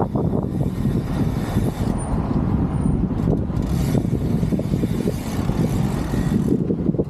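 Wind buffeting the action camera's microphone as the rider moves through traffic, a dense low rumble mixed with the sound of cars and vans close alongside.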